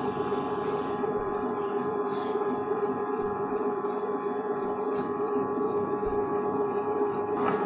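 Butterfly Rhino Plus tabletop wet grinder running with its atta kneader attachment, the steel drum turning flour and water into dough: a steady motor hum with a ringing whine of several held tones.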